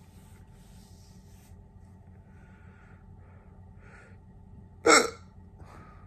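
A single sharp, loud hiccup about five seconds in, preceded by a few faint breaths.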